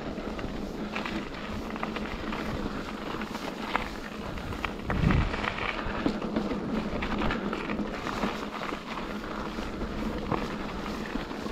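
Mountain bike riding a rocky gravel trail: steady tyre noise on grit and stone with frequent rattling clicks and knocks from the bike, and wind on the camera microphone. A heavier low thump comes about five seconds in.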